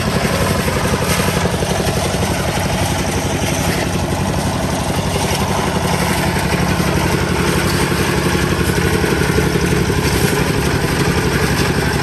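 An engine running steadily at a constant speed, with an even, rapid pulsing.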